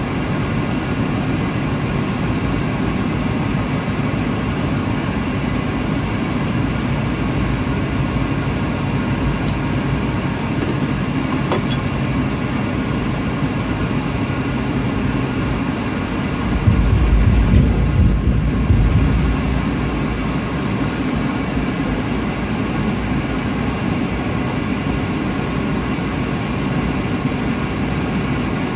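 Semi-truck's diesel engine running, heard inside the cab as the truck rolls slowly, with a louder low rumble for about three seconds a little past halfway through.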